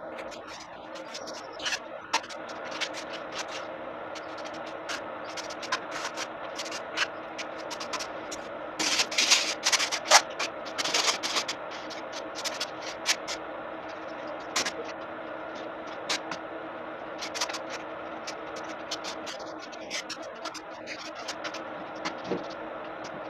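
Scraping, rubbing and small knocks of hand work on plaster panels, with a louder stretch of rubbing about nine to eleven seconds in, over a steady background drone.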